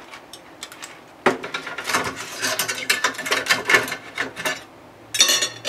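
Kitchen utensils clicking, rattling and scraping against a Philips Airfryer's basket as food is put back in, in dense runs from about a second in and again near the end.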